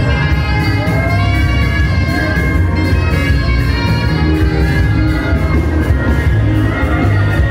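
Loud live praise music from a band: a heavy, steady bass and drum beat under a held melody line that slides in pitch in places.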